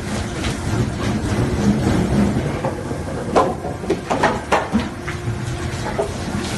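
A 4-foot spindleless hydraulic log debarker running with its rollers turning a log and stripping the bark. It makes a steady mechanical rumble with irregular sharp knocks and cracks of wood and bark, several of them close together about three and a half to five seconds in.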